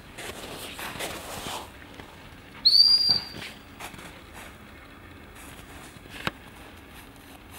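A dog-training whistle gives one short, high blast about three seconds in. It is the single-blast stop signal used to halt a retriever in the field for hand signals.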